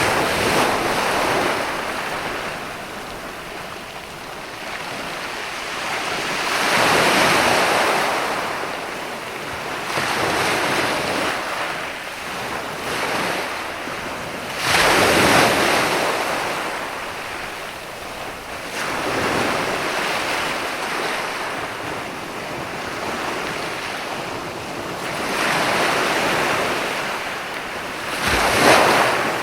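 Ocean waves breaking and washing up the shore, the surf swelling and easing every few seconds, with a sharper wave crash about halfway through and another near the end.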